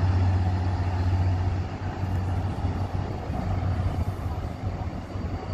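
Diesel locomotive engine running as a train approaches in the distance: a steady low hum.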